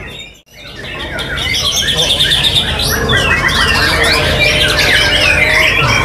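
Many caged white-rumped shamas (murai batu) singing at once, a dense overlapping chorus of whistles, trills and chirps. The sound dips out briefly about half a second in, then swells back.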